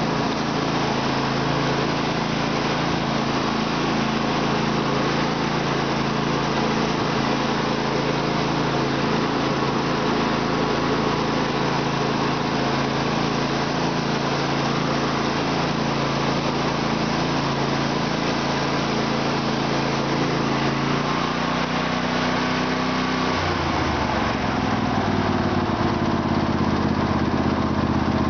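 Craftsman LT1000 lawn tractor's 18.5 HP Briggs & Stratton V-twin engine running steadily under way. About three quarters of the way through, the engine speed drops to a lower, steady note.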